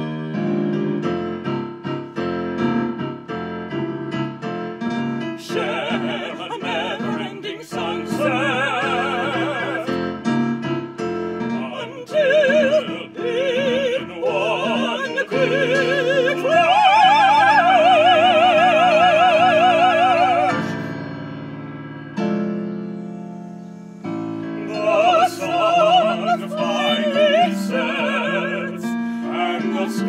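A woman and a man singing an operatic duet in full voice with wide vibrato over electric keyboard accompaniment. Near the middle a long, loud note is held, then the keyboard plays alone for a few seconds before the voices return.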